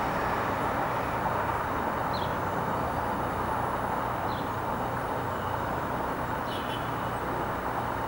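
Steady wash of distant city traffic noise, with three faint, short high chirps about two seconds apart.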